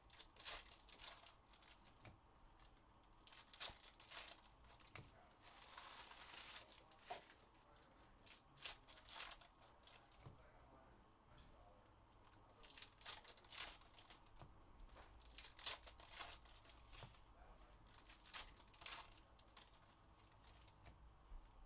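Foil trading-card pack wrappers crinkling and tearing open in the hands, in a string of short, irregular crackles with a lull about ten seconds in.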